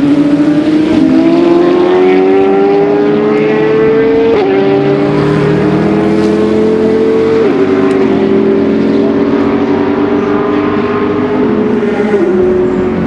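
Race car engine accelerating under load, its pitch climbing steadily in each gear and dropping at three upshifts a few seconds apart.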